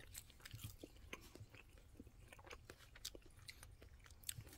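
Faint mouth sounds of people eating ice cream with brownie pieces: soft, irregular chewing clicks and smacks, barely above room tone.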